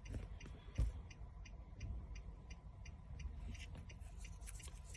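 Hazard-light flasher of a 2014 Infiniti QX80 ticking evenly, about three ticks a second, with one soft thump about a second in.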